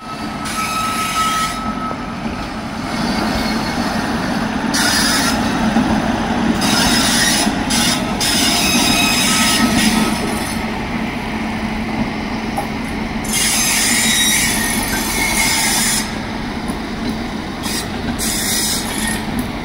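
Steady, loud rumble and rattle of train wheels on rail as an Indian Railways electric locomotive and its passenger coaches pass on the next track, with swells of rushing hiss as the coaches go by.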